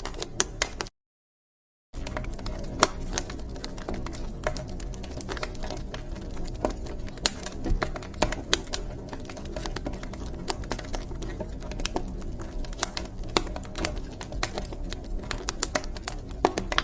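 Wood fire in a fireplace crackling: irregular sharp pops and snaps over a low steady rush of the flames. The sound cuts out completely for about a second near the start, then resumes.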